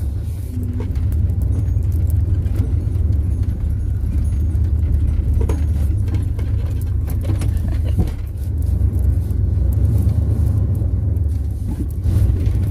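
Wind buffeting the microphone: a heavy, unsteady low rumble, with a few light clicks and rustles from the phone being handled.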